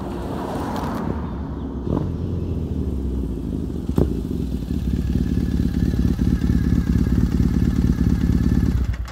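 2014 Triumph Thruxton 900 parallel-twin with a British Customs aftermarket exhaust approaching and passing close by, with a single sharp crack as it goes past about four seconds in. Its steady exhaust note stays loud after the pass, and the tyre noise of a passing car fades near the start.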